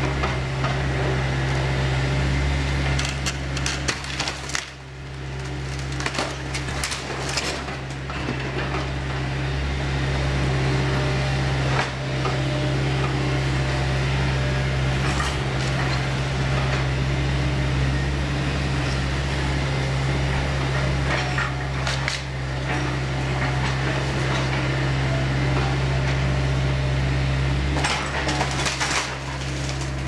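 KATO hydraulic excavator's diesel engine running steadily as its demolition grapple tears into a timber-framed building, with repeated bursts of wood cracking, splintering and debris clattering down.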